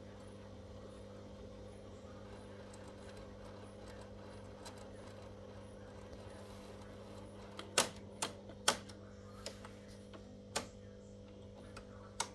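Panasonic J22 VHS video recorder winding tape, with a faint steady motor hum. From about eight seconds in comes a run of sharp mechanical clicks and clunks as the deck is switched from rewind to fast-forward.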